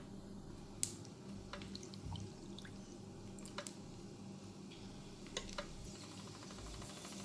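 A few light clicks and taps of kitchen handling over a steady low hum.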